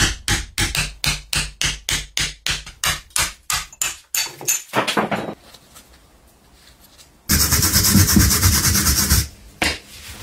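A hand tool scraping and gouging old wooden handle remnants out of the eye of a rusty hammer head clamped in a vise, in fast rhythmic strokes of about four a second. After a short pause comes about two seconds of loud, steady rasping noise, then a single knock near the end.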